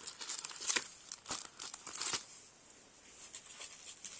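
Sticker sheets and their clear plastic packaging crinkling and rustling as they are handled and shuffled by hand, in irregular crackles that are loudest in the first couple of seconds.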